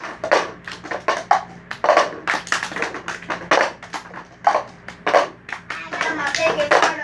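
Children playing a cup-rhythm game: a quick pattern of hand claps and plastic cups tapped on a wooden floor, with children's voices joining in near the end.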